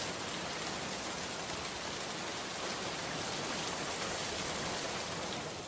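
Steady rain falling, an even hiss, starting to fade out at the very end.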